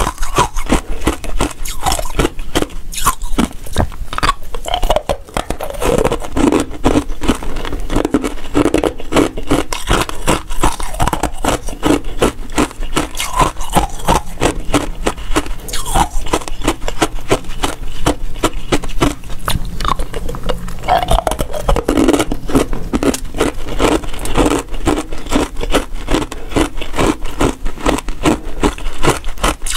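Close-miked crunching and chewing of frozen basil-seed ice: a dense, continuous run of crisp cracks as the ice pieces are bitten and ground.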